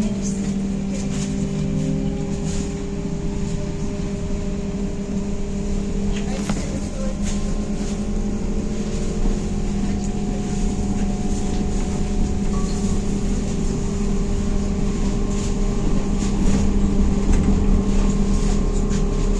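Ride inside a MAZ-203T70 trolleybus: the electric traction drive hums with several steady tones over low road rumble, with scattered clicks and rattles from the body. The rumble grows a little louder near the end.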